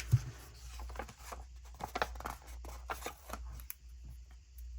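Paper being handled: stickers peeled from their sheet and pressed onto a planner page, a run of light rustles, clicks and taps with one sharper knock just after the start.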